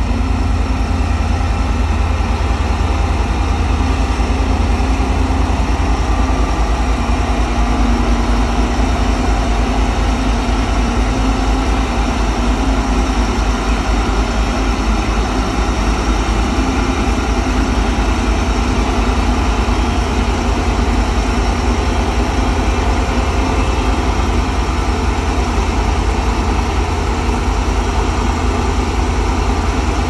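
Diesel engine of a Claas Lexion 760TT tracked combine harvester running steadily at a constant speed, with a deep even drone.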